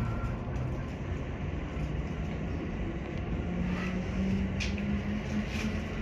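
Electric train moving off and accelerating, heard inside the driver's cab: steady running rumble with a motor tone that rises slowly in pitch from about halfway in, and a sharp click near the middle.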